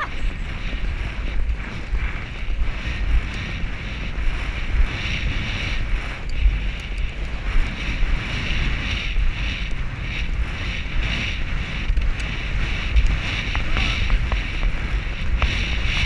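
Heavy wind buffeting a GoPro Hero 4 action camera's microphone as the horse gallops along the sand, a steady low rumble that swells and dips unevenly.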